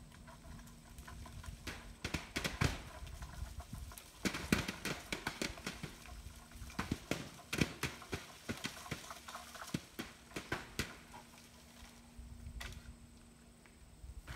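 Wild apples dropping out of a tree being shaken with a long picking pole, landing on plastic tarps and grass in a scatter of irregular thuds. They start about two seconds in, come thick and fast, and thin out near the end.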